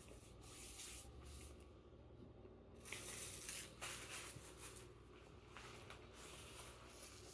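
Faint eating noises: soft chewing and the rustle of handling flatbread and chicken, loudest about three seconds in.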